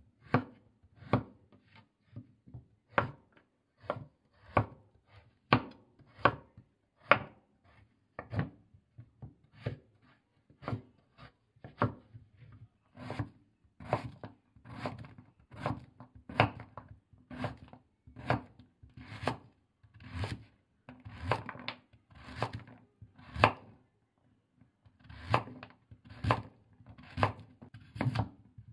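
Kitchen knife slicing firm root vegetables (burdock root, daikon radish, carrot) on a wooden cutting board: a steady series of crisp knife strokes against the board, about one a second and a little quicker in the second half.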